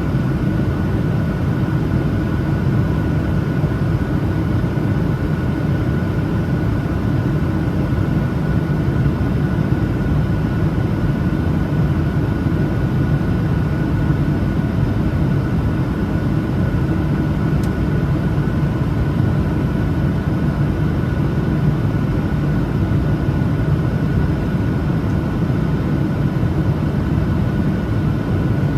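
Steady cabin roar of a Boeing 737-900ER in flight, its CFM56-7B engines and airflow heard from a window seat, with a thin steady whine above the low rumble.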